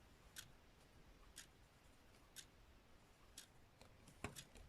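A clock ticking faintly, one tick a second, with a single louder click near the end.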